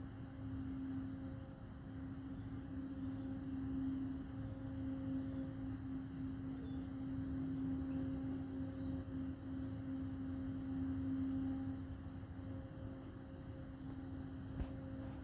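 Steady, unbroken drone at one constant pitch, with a fainter higher overtone, over a low rumble. This is the round-the-clock humming noise attributed to the General Motors Milford Proving Grounds.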